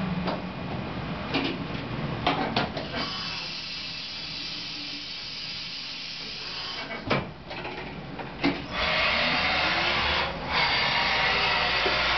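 Fadal CNC vertical machining centre starting a cycle: several sharp mechanical clicks and clunks over a low running hum. Then, about nine seconds in, the spindle spins up with a faint rising whine and flood coolant starts spraying with a loud steady hiss.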